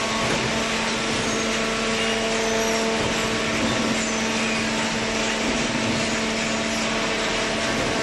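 Horizontal hydraulic carton baler and its feed conveyor running: a steady machine hum at one constant pitch over a dense whirring noise.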